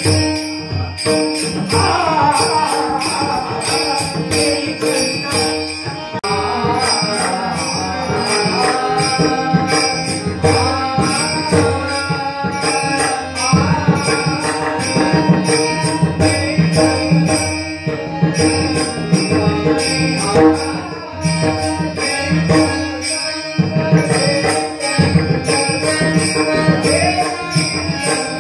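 Devotional bhajan music: a voice singing over a steady held drone, with small hand cymbals jingling in a regular beat and a drum below.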